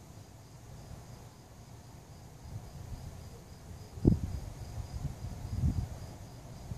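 Crickets chirping in a faint, high, evenly pulsing trill over a low rumble, with a sharp low thump about four seconds in and a softer one a little later.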